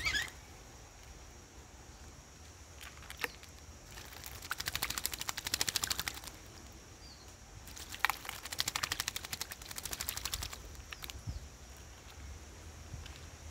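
Common myna bathing in a plastic basin, beating its wings in the water in two bursts of rapid splashing, each a couple of seconds long, with a few single splashes and drips between.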